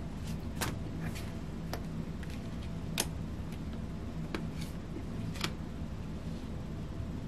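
Tarot cards being handled: a handful of sharp little clicks and snaps as cards are drawn from the deck and laid down on the cloth, the strongest about three seconds in, over a steady low hum.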